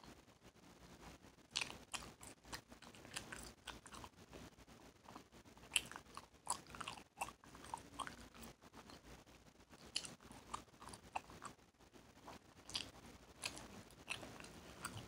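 Bubble gum being chewed close to the microphone: irregular wet mouth smacks and sharp clicks of the gum, the loudest a single snap about six seconds in.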